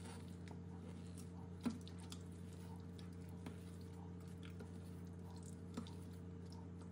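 Silicone spatula mixing cream cheese and raw eggs in a stainless steel bowl: faint wet squelching, with a light click against the bowl twice. A steady low hum runs underneath.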